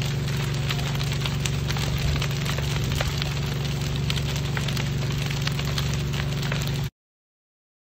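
Fire crackling over a steady low engine hum; all sound cuts off abruptly near the end.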